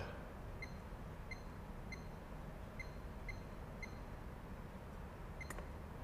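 Sargent & Greenleaf D-Drive electronic safe lock keypad beeping faintly as a six-digit combination is keyed in: six short, same-pitched beeps about half a second apart. Near the end comes a short beep and a sharp click as pound is pressed and the lock releases.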